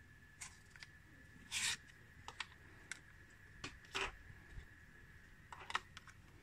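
Light scattered clicks and a brief rustle as a cardboard screen-protector box and a frosted plastic case are handled and set down on a tabletop, with a faint steady high-pitched tone underneath.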